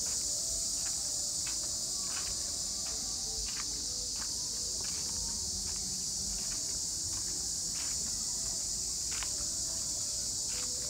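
Steady, high-pitched chorus of insects droning without a break, with faint footsteps on a dirt path underneath.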